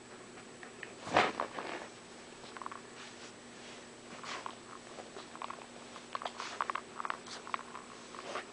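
Golden retriever's mouth and nose noises close to the microphone: a louder noisy burst about a second in, then a run of small wet clicks and smacks near the end, like mouthing or licking.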